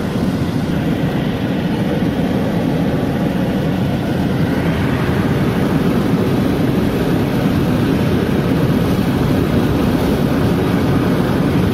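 Steady low road noise inside a moving car's cabin: tyres on the road and the engine at cruising speed.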